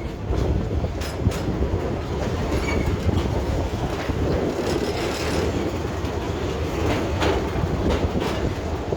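Amusement-park train cars rolling along the track, heard from aboard: a steady rumble with scattered clicks of the wheels over the rail joints.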